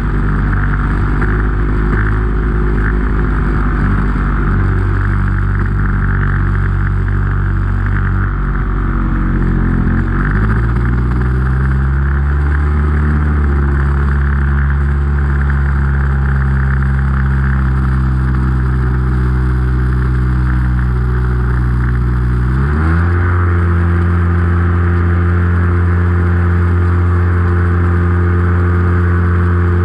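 RC Piper Cub tow plane's engine running in flight with wind rushing over the onboard camera, while towing a glider. The engine note sags and climbs back about a third of the way in, then steps up to a higher pitch about three quarters of the way through.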